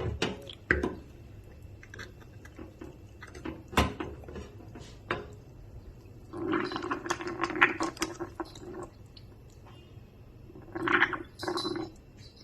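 Hand-fed baby parrot giving raspy food-begging calls: one long call about six seconds in and two short ones near the end. Scattered clicks and taps of feeding come between them.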